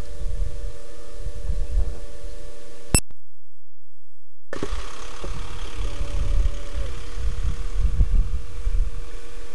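Low, uneven rumble of outdoor background noise with a faint steady hum. About three seconds in, a click is followed by about a second and a half of dead silence, then the rumble resumes.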